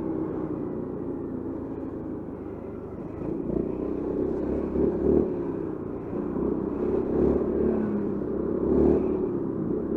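Honda Forza 350 scooter's single-cylinder engine running in slow stop-and-go riding, its note rising and falling with the throttle. It gets louder from about three seconds in, with a couple of short pulls.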